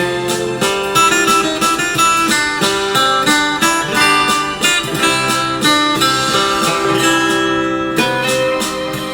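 Background music: a guitar piece of quickly plucked and strummed notes.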